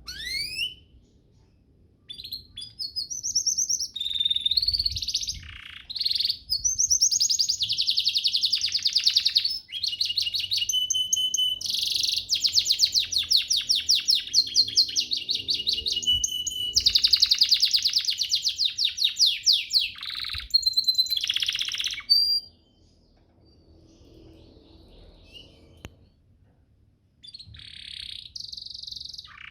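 Domestic canary singing: long, high-pitched song made of rapid trills and rolls, opening with a quick rising whistle. It breaks off for a few seconds and starts again near the end.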